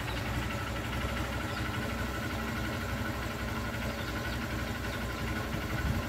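Motorcycle engine idling steadily, its exhaust blowing into a long balloon fitted over the silencer and slowly inflating it.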